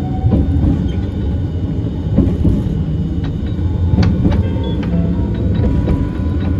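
Hiroshima Electric Railway 1000-series Green mover LEX low-floor tram running, heard from inside the car: a steady low rumble of wheels on rail, scattered sharp clicks, and a faint motor whine that rises slowly in pitch in the second half.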